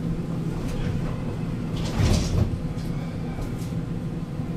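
Duewag R1.1 low-floor tram heard from inside the passenger compartment, with a steady drive hum. About two seconds in comes a brief louder clatter with a hiss.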